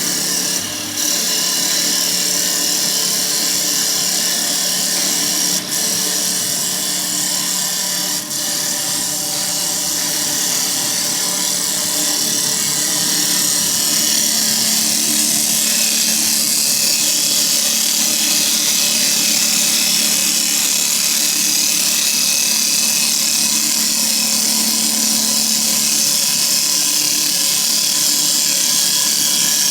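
CNC wood lathe running a turning program: the motors hum steadily while the cutters shave the spinning wooden blank with a hissing, rasping cut that grows a little louder about halfway through.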